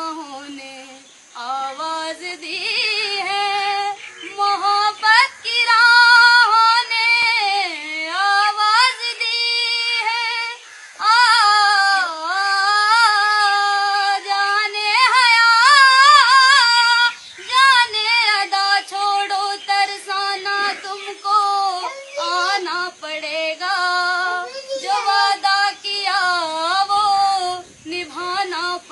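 A woman singing solo and unaccompanied, a high melodic line with wavering vibrato in long phrases broken by short breaths.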